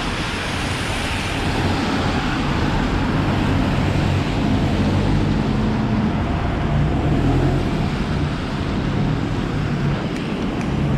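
Heavy rain and traffic on a wet city street: a steady hiss, with a vehicle engine's low hum coming through from about four seconds in until near the end.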